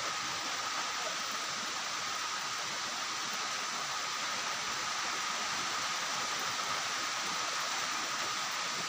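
Typhoon downpour: steady, unbroken rain falling on trees and foliage, an even hiss that does not let up.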